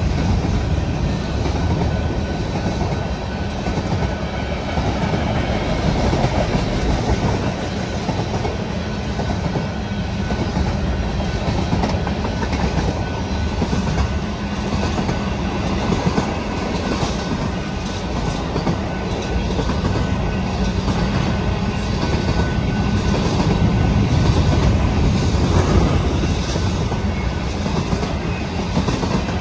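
Union Pacific freight train rolling past, a steady heavy rumble of cars on the rails. From about halfway through, the wheels clack rhythmically over the rail joints.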